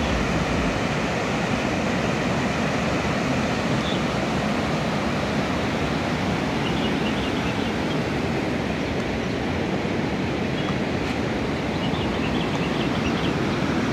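Swollen river in flood, fast brown floodwater rushing past with a steady, even rush.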